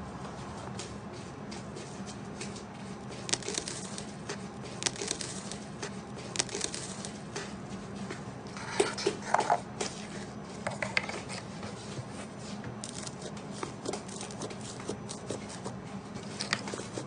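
Slime being squeezed and poked, making irregular sticky clicks and small crackling pops, with a busier run of pops about halfway through.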